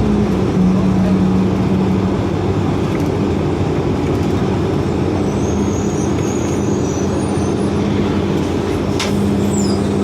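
2004 Orion VII hybrid-electric city bus heard from inside the cabin while riding: a steady drivetrain hum with road noise. A faint thin high tone comes in the middle, and a short sharp sound comes near the end.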